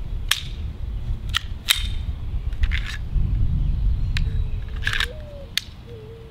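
Sharp plastic-and-metal clicks and clacks, about seven, from a Sig P365 CO2 BB air pistol being worked by hand. Its magazine comes out of the grip without the release being pressed.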